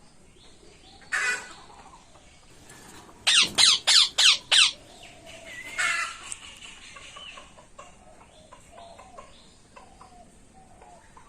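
Ringneck parrots screeching: one loud call about a second in, then a quick run of five sharp screeches, another call, and softer chattering after that.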